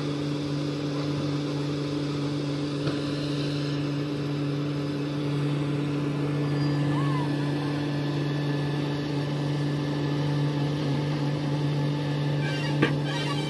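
Diesel engine of a Komatsu hydraulic excavator running at a steady speed, with one sharp knock near the end.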